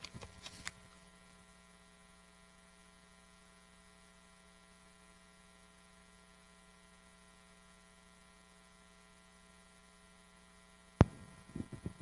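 Faint steady electrical hum from the sound system, with a few small clicks near the start. About eleven seconds in, a sharp microphone thump is followed by handling noise as a handheld microphone is picked up.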